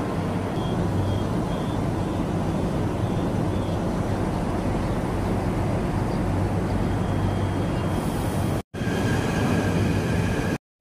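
Commuter train in motion heard from inside the carriage: a steady rumble of wheels on track and running gear. The sound cuts out briefly twice near the end.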